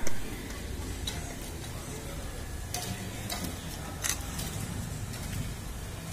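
A steady low hum under background noise, with a sharp knock at the very start and a few scattered clicks after it.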